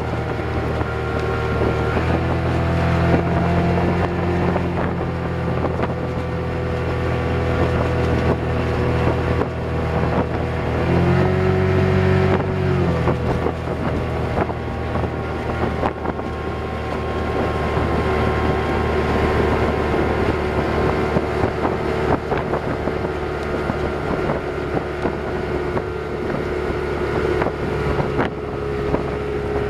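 Freshly rebuilt Mercury 135 hp outboard running at speed while being broken in, its engine note shifting about two seconds in and again briefly near the middle. Wind buffets the microphone and the wake hisses underneath.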